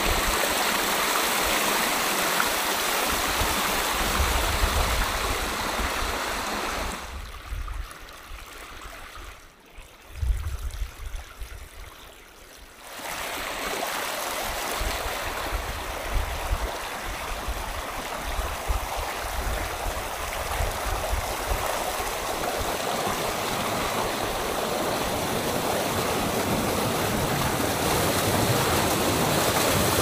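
Rain-fed wadi stream rushing over rock ledges and small cascades, a steady rush of water. For several seconds near the middle it falls away to a low rumble, then the rush comes back.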